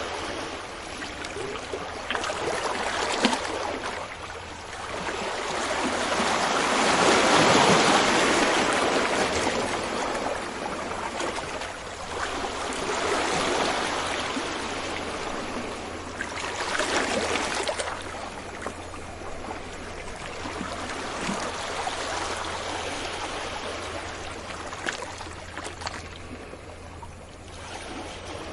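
Ocean waves breaking and washing up a beach, the surf swelling and ebbing in slow surges, loudest about a quarter of the way in with smaller swells after.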